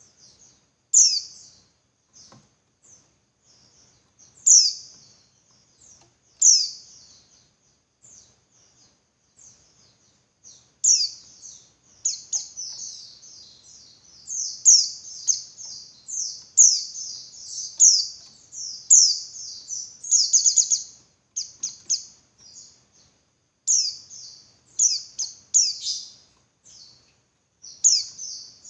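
Female white-eye (pleci) call: high, sharp chirps that sweep quickly downward. They come singly every second or two, then in quick clustered runs from about a third of the way in. This is the female's call to males, used to excite male white-eyes into singing.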